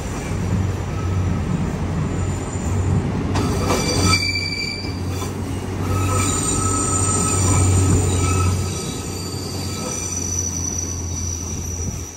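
Narrow-gauge rack-railway train passing close by: a steady low running drone with several high, shifting squealing tones from the wheels and running gear. It is loudest as the train goes past and drops away sharply at the end.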